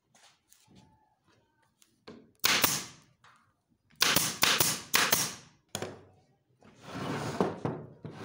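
Pneumatic upholstery staple gun firing staples through fabric into a wooden chair frame: sharp shots, one alone and then a quick run of about four, plus one more. A longer rushing noise follows near the end.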